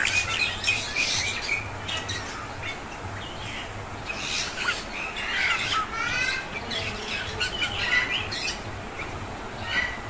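Bali mynas calling: a busy run of varied chirps and harsh squawks, busiest about four to six seconds in.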